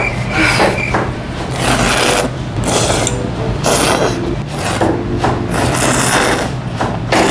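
Person slurping soy-milk noodles (kongguksu) and broth from a stainless-steel bowl held to the mouth: a run of wet slurps, about one a second, starting about a second and a half in.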